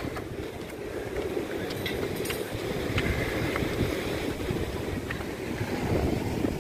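Wind rumbling and buffeting on the microphone over the steady wash of sea waves on a rocky shore, with a few faint ticks.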